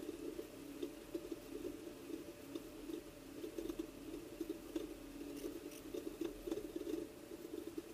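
Faint, steady drone of an off-road race vehicle's engine picked up by an onboard camera, with scattered knocks and rattles as the vehicle jolts over square-edged bumps in rough desert terrain.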